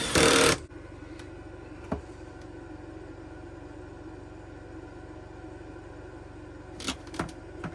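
A cordless Milwaukee driver runs for about half a second, snugging the cable bolt onto a battery terminal. A steady low mechanical hum follows, with a few light clicks: one about two seconds in and two close together near the end.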